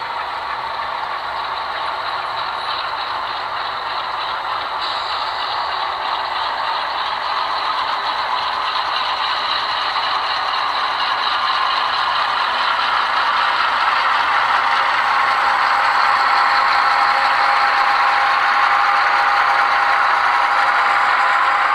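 HO-scale model diesel locomotives running at the head of a coal train, with engine sound and rattling wheels on the track. It grows steadily louder as the locomotives approach.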